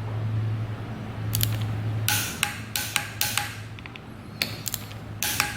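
Metal hand tools clinking and clicking while tightening a handlebar clamp bolt: a single click about one and a half seconds in, a quick run of sharp clicks from about two seconds in, and more near the end.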